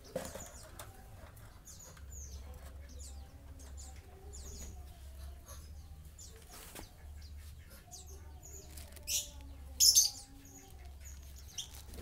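A lovebird's wings flapping as it is caught by hand in its cage and held, with many short, high, falling chirps throughout. The loudest bursts come about nine and ten seconds in.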